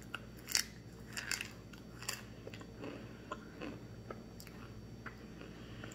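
Chewing a mouthful of starch chunks: sharp crunches, the loudest about half a second in and again around one and two seconds in, then lighter, sparser crunches as the chewing goes on.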